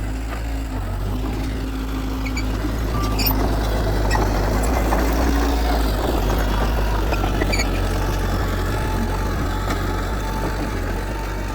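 Diesel engine of heavy earthmoving machinery running steadily with a deep hum, growing a little louder for a few seconds in the middle.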